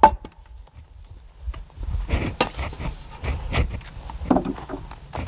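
Hammer driving a nail into cedar framing: one sharp ringing strike at the start, then after a pause a run of lighter knocks and taps against the wood.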